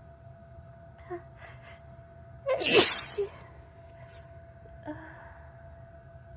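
A person sneezing once, loud and sharp, about two and a half seconds in, after a few short catching breaths; a single faint breath follows a couple of seconds later.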